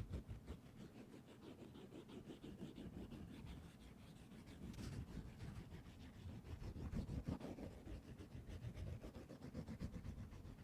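Faint, continuous rubbing and scratching close to a microphone, with many small clicks and a brighter scratchy stretch about halfway through.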